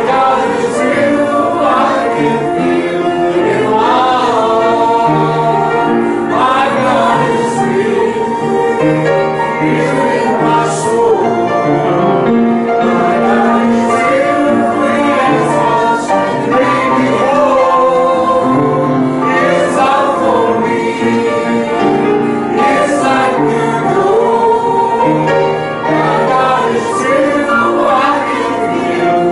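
A small church choir singing a hymn.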